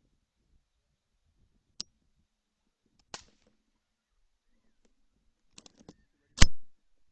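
A few faint sharp clicks, then a single loud rifle shot about six seconds in that dies away quickly.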